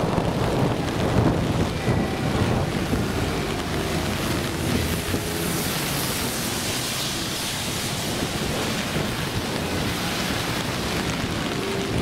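Typhoon rain falling steadily, with a low rumble that is heavier in the first few seconds.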